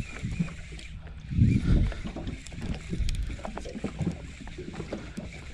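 Sea water lapping against an inflatable boat, with low rumbling gusts about a second and a half in and scattered light clicks while a fish is reeled in on a conventional reel.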